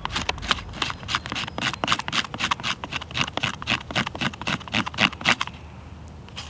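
A small knife blade scraping fast, repeated strokes across thick, firm birch bark, raising a pile of bark dust as fire tinder. The strokes come about five or six a second and stop about five and a half seconds in.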